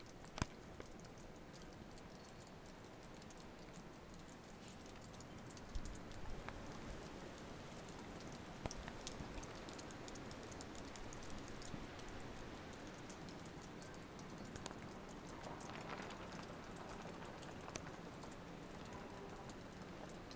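Steady hiss of blizzard wind with many light ticks of blowing snow pattering, and a few sharper clicks.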